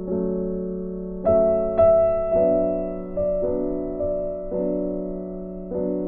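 Background music: slow, soft piano chords, each struck and left to fade, a few new notes every second or so.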